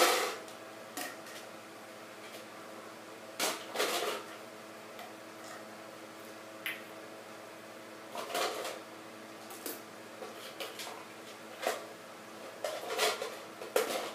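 Scattered knocks, clacks and rustles of small objects being handled and set down, over a steady faint hum; the loudest knock comes right at the start.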